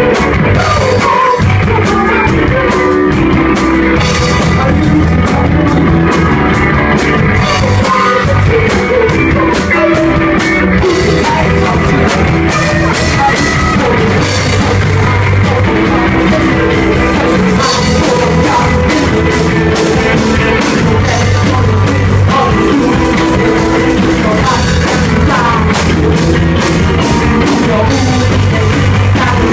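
Rock band playing live: loud, steady full-band music with drum kit and guitars, and a voice singing over it.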